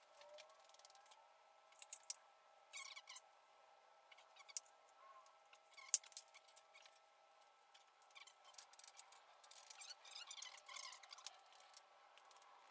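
Quiet handling noises: scattered light clicks and taps, with a sharper tap about six seconds in, and short scratchy scraping strokes around three seconds and again near ten to eleven seconds.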